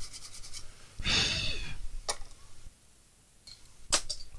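Quick scratchy rubbing tails off, then a short breathy exhale with a falling pitch about a second in, followed by two sharp clicks.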